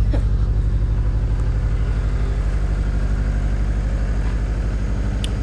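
Ford Ranger engine idling with an even, rhythmic pulsing knock, which the owner takes for rod knock.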